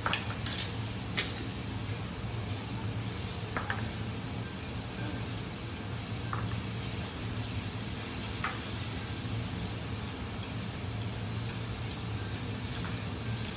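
Tomahawk steak and seafood sizzling steadily on a hot teppanyaki griddle, with a few sharp clicks and scrapes of a metal spatula and knife on the steel plate, the loudest near the start. A steady low hum runs underneath.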